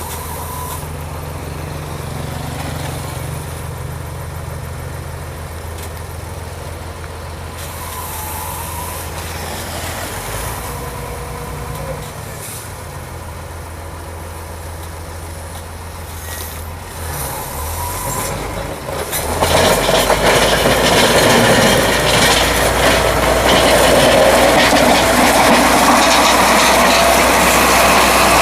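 Heavy logging truck's diesel engine running steadily at a low hum. About two-thirds of the way through it becomes much louder and fuller as a truck works hard close by.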